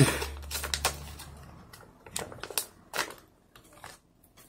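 Hands opening and handling a small soy milk drink pack: scattered sharp clicks and light plastic crinkles, a few per second at first and sparser later, with a louder knock right at the start.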